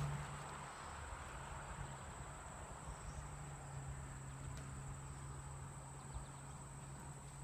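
Outdoor summer field ambience: insects giving a steady high-pitched trill, with a steady low hum underneath.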